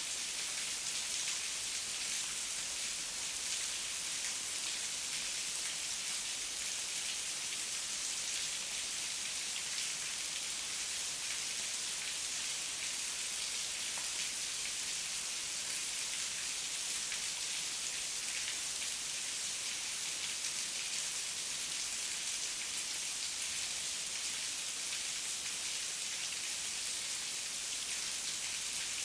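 Heavy rain falling steadily, a dense even hiss with close drops pattering on surfaces and no thunder.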